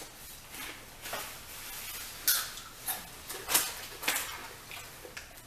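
Doritos tortilla chips crunching as they are chewed, with the chip bag crinkling as a hand reaches in; a few sharp crackles come between about two and four seconds in.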